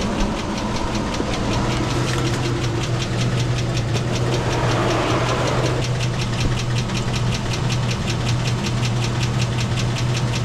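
2001 GMC Sierra's 4.8-litre V8 idling with a rapid, even tick, which the owner believes is a lifter and timing chain on a high-mileage engine. A short rush of noise comes partway through.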